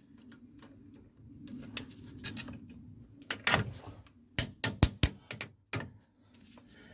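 Sharp metallic clicks and taps as a new anti-rattle spring clip is worked into place on a front brake caliper, about six of them in the second half.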